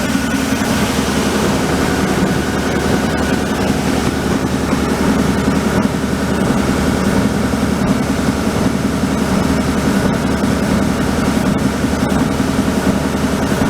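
Timesavers Model 2311-24-1 wide belt sander running under power, its 25 HP three-phase main motor driving the sanding belt: a loud, steady mechanical hum with a strong low drone.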